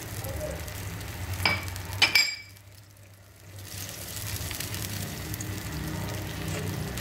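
Tomato sauce simmering in a clay tagine while a wooden spoon stirs it, with sharp knocks of the spoon against the pot about one and a half and two seconds in. The sound drops away for about a second just after the knocks, then the steady simmer returns.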